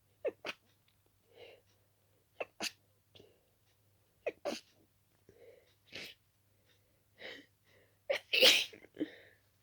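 A person sneezing over and over in an allergic sneezing fit: short sharp sneezes, several coming in quick pairs about every two seconds, with small breaths in between and a louder, longer sneeze near the end.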